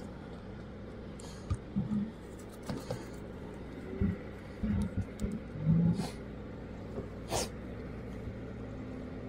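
White plastic waste-pipe fittings handled and pushed together, giving scattered clicks, taps and short squeaks over a steady low hum. A sharper click comes near the end.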